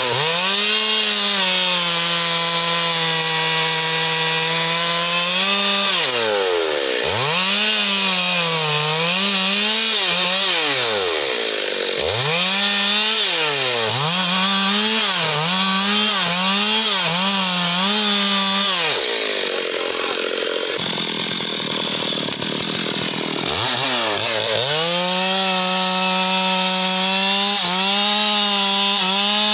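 STIHL chainsaw cutting teak wood. It is held at full throttle, then revved up and down in quick surges about once a second. About two-thirds through it eases off, then climbs back to full throttle near the end.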